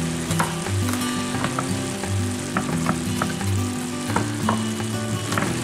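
Ground beef and onion sizzling in a cast-iron skillet, with the light taps of a chef's knife on a wooden cutting board as garlic is minced. Background music with a low stepping bass line plays underneath.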